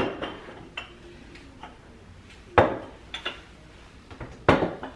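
Ceramic canisters being handled and set down on a countertop: a handful of sharp clinks and knocks, the loudest at the start, about two and a half seconds in, and near the end.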